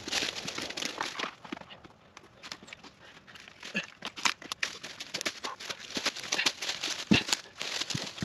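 Footsteps crunching and rustling through dry leaves and twigs, with scattered irregular clicks and one heavier thud about seven seconds in.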